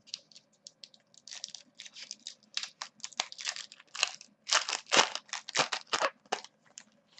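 A pack of baseball cards being handled: quick, irregular crinkling and rustling of the wrapper and cards, loudest in the second half.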